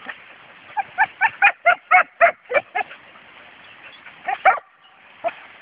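Serbian tricolour hounds barking at a downed wild boar: a quick run of about nine sharp barks, several a second, then a pause and a double bark near the end.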